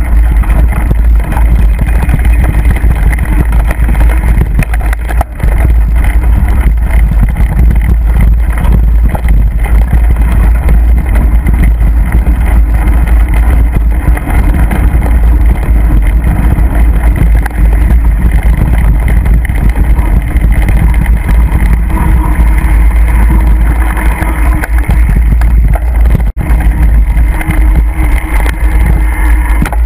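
Mountain bike riding over a rough, bumpy trail, heard from a camera on the rider or bike: loud, steady wind rumble on the microphone mixed with tyre noise and rattling over the ground.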